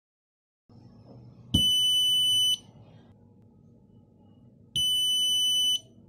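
Buzzer of a homemade Arduino vibration alarm sounding two steady, high-pitched beeps, each about a second long, about three seconds apart. Each beep starts with a sharp tap, the knock that the piezo disc sensor on the wall picks up to set the alarm off.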